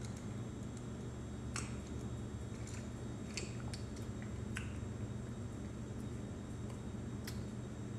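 Steady low room hum with a few faint, separate clicks of ice shifting in a glass tumbler as the drink is sipped and lowered.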